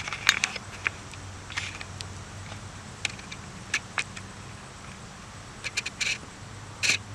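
Scattered clicks and short scrapes of old golf-cart metal parts being handled and turned by hand to see whether they still spin, over a faint low hum.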